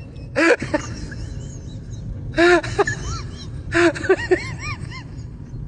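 An animal's short, high whining cries, each rising then falling in pitch, coming in three clusters of several cries each.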